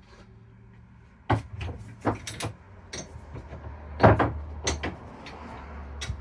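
Old metal hand tools knocking and clanking in a series of irregular sharp knocks, about ten in all, as they are picked up, moved about and set down. The loudest knock comes about four seconds in.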